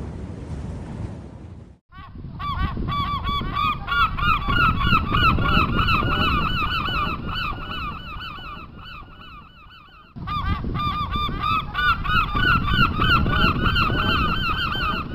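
A flock of gulls calling, many short, harsh, overlapping cries at once over a low rumble of wind and sea. The sound drops out briefly about two seconds in, then the calling starts. It thins out just before ten seconds and comes back suddenly at full strength.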